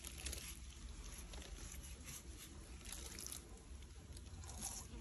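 Knife slicing along the flesh of a hybrid Mekong giant catfish on a wooden chopping block: faint wet cutting and scraping with a few soft ticks.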